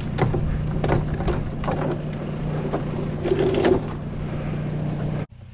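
An engine running steadily at idle, with scattered knocks and clatter over it; the sound cuts off abruptly near the end.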